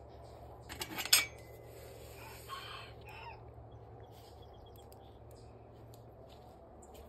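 A chain-link gate rattles and clanks sharply as it is opened, about a second in. Then a rooster crows once, a call of about a second.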